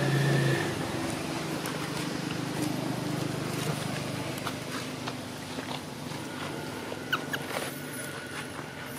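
Long-tailed macaques moving over dirt and dry leaves: soft scuffs and clicks over a steady hiss, with two short high squeaks about seven seconds in.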